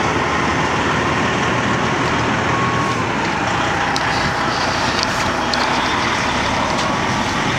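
Loaded 18-wheeler semi truck rolling slowly past at close range, its engine and tires making a steady, even noise, with a few faint clicks about halfway through.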